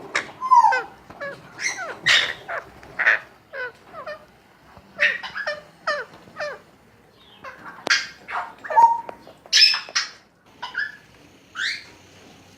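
Baby Alexandrine parrots calling: a rapid, irregular string of short, harsh squawks and chirps, many with quick upward or downward sweeps in pitch.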